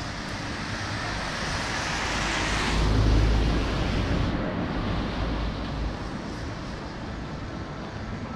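A vehicle passing on a wet road: the hiss of tyres on the wet surface builds over the first few seconds, then a low rumble peaks about three seconds in and fades away.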